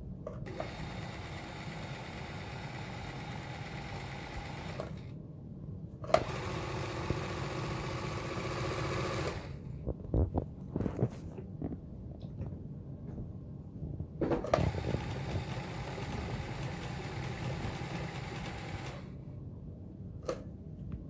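Elna 9000 computerized sewing machine running in three stretches under the foot control, stopping between them; the middle run is the loudest. A few sharp clicks and knocks sound in the pauses. This is a test run after cleaning and lubrication.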